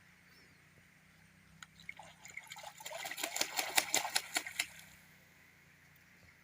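Geese splashing in water: a quick run of splashes that starts about a second and a half in, builds for about three seconds, then stops.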